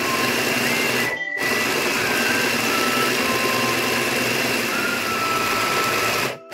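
Electric mini food chopper running at speed, its blades mincing raw meat into a paste. The motor runs steadily, stops briefly about a second in and again near the end, then restarts.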